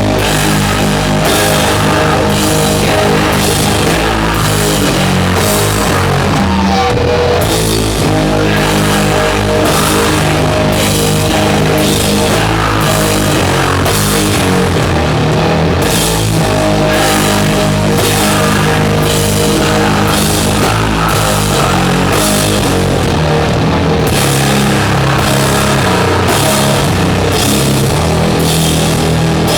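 Doom metal band playing live and loud: heavily distorted guitars and bass holding low chords over a steady drum beat with regular cymbal hits.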